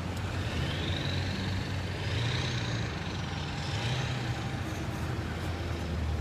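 Cars and trucks in a slow procession driving past, engines and tyres running steadily, with a high whine that rises and then falls as one vehicle goes by.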